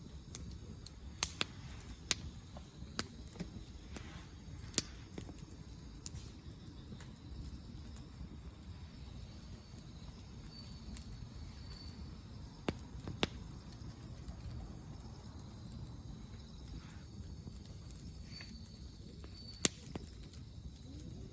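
Wood campfire crackling: irregular sharp pops and snaps over a low background rumble.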